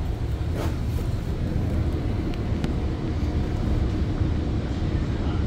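Steady low rumble of a Bombardier BiLevel commuter coach rolling along the rails, heard from inside the passenger car, with a few faint clicks.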